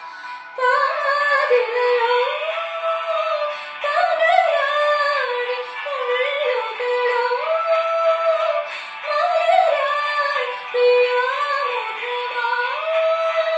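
A young woman singing solo in a high voice without accompaniment: sustained, gliding melodic phrases with short breaths between them every few seconds.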